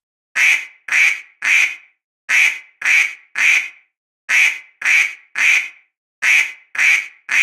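A duck quacking: four sets of three short, rasping quacks, about half a second apart within each set.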